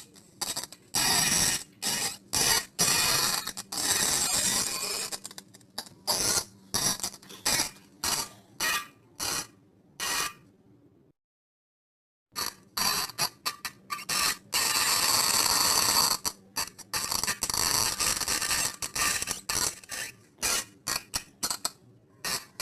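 A string of fart sound effects: many short noisy bursts in quick succession, a few of them drawn out for a second or two, with a dead-silent break of about a second near the middle.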